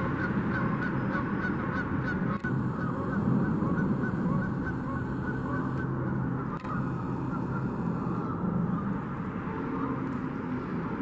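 A flock of geese honking continuously over a steady low rushing noise.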